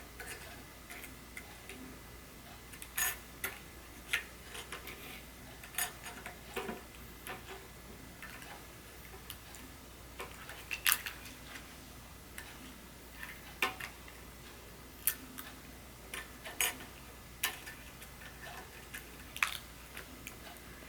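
Small sharp clicks and taps, irregular and a second or more apart, from small tools and phone parts being handled while an iPhone 6s Plus is reassembled after a screen replacement.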